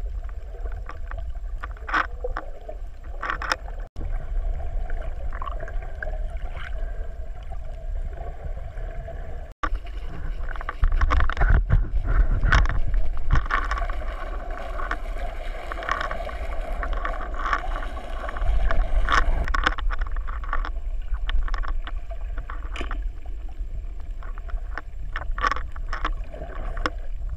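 Muffled underwater sound picked up by a camera held below the surface while snorkelling: a low rumble of moving water with scattered clicks and crackles. It breaks off briefly twice and grows louder about ten seconds in.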